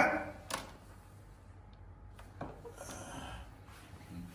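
A gasp or shout cutting off right at the start, then a quiet room with a sharp click about half a second in, a softer knock a couple of seconds later and faint sounds of movement.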